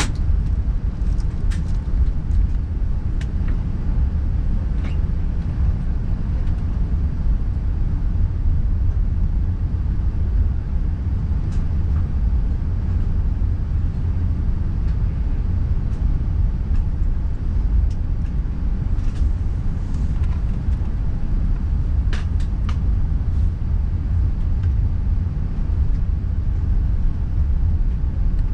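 Steady low rumble inside the cabin of an Airbus A380 taxiing to the runway, with a few faint clicks now and then.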